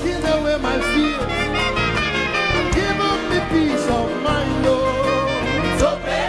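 Live gospel praise band playing an upbeat passage, a gliding lead melody over steady bass and drums.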